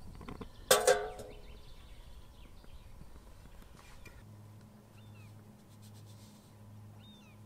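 Stainless steel kettle set down onto a perforated metal stove box over a spirit burner: one sharp metal clank with brief ringing about a second in. From about halfway, a low steady hum and a few faint bird chirps.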